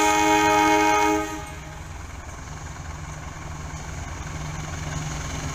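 Indonesian CC 201 diesel-electric locomotive (GE U18C) sounding its horn, a chord of several steady tones that cuts off about a second in. After that comes the rumble of its engine and the train, slowly growing louder as it approaches.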